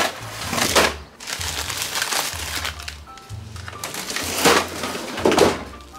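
Plastic bags of frozen food crinkling and crackling as hands rummage through a freezer drawer and pull out a bag of frozen vegetable scraps, in irregular bursts with the loudest near the end. Background music plays underneath.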